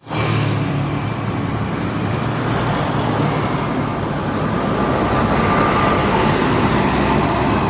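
Steady road traffic noise, with the low hum of a large vehicle's engine strongest in the first seconds.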